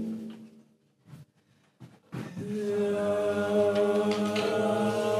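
A sung phrase fades out into about a second and a half of near silence. About two seconds in, an ensemble of voices comes in together and holds a long, steady chord.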